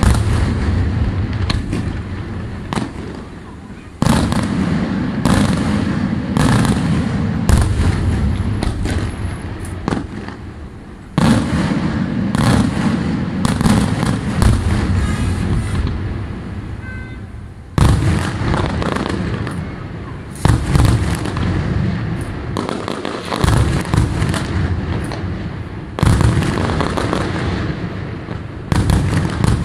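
Daytime fireworks display: aerial shells bursting in loud bangs, with quick strings of crackling reports in between. Every few seconds a big bang sets off a rumbling tail that dies away over several seconds before the next one.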